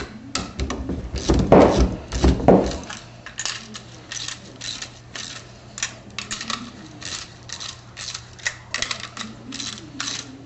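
Socket ratchet clicking in short runs as lock nuts are tightened down on the tap bolts of an 11-plate HHO dry cell, the plates compressing. A few heavier knocks come in the first three seconds.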